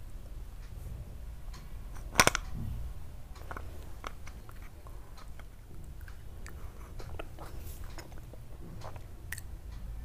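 Hard white chalk pieces being bitten and crunched close to the microphone: one loud sharp crunch about two seconds in, then scattered small clicks and crackles over a low steady hum.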